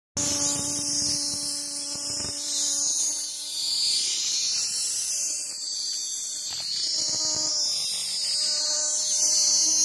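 Cicada (tonggeret) calling: a steady, high-pitched buzzing drone.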